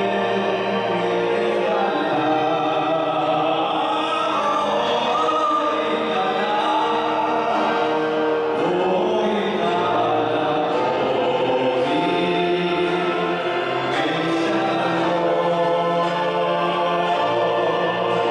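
Male choir singing in parts, accompanied by violin, clarinet and keyboard.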